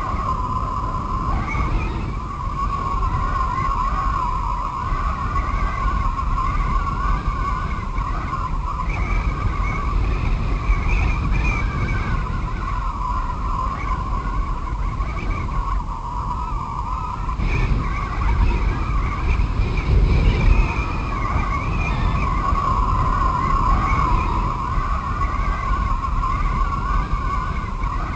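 Howling wind: a wavering, whistling howl over a steady low rumble.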